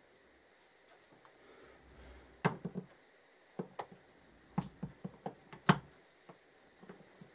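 Steel gearbox shafts and gears being handled and seated in the aluminium crankcase of a 1977 Kawasaki KZ650 engine: a run of sharp metallic clicks and clunks starting about two and a half seconds in. The loudest comes after about three seconds, followed by a few fainter taps.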